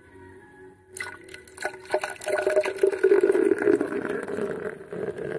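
Beer being poured, splashing liquid with the crackling fizz of carbonation, starting about a second in and growing louder.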